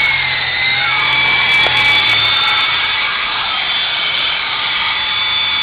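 Syma S033G RC helicopter's electric motors and gears whining steadily in flight, running on a low battery. The whine dips and rises in pitch during the first couple of seconds.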